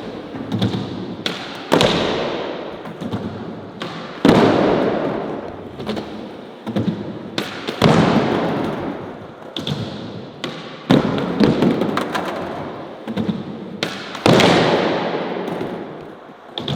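Skateboards repeatedly hitting the ground with loud sharp claps about every three seconds, each followed by a fading rumble of wheels rolling, with lighter clicks of the boards in between.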